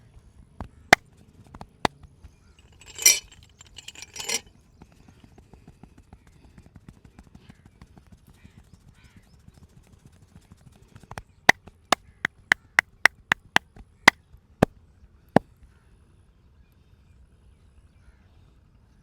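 Sharp hand smacks of a percussive massage: a few single smacks and two brief rubbing sounds, then about halfway through a quick run of about a dozen smacks at roughly three a second.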